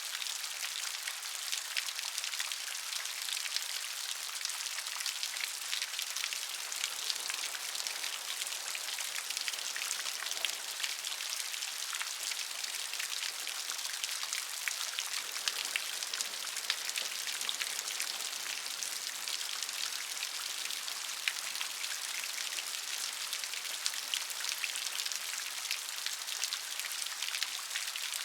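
Steady rain, many small drops pattering on a surface with a dense hiss.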